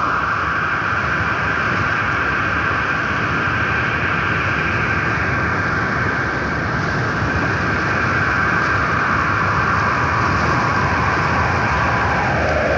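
Steady rushing sound of wind and river water, with a high howling tone held over it that slides down in pitch near the end.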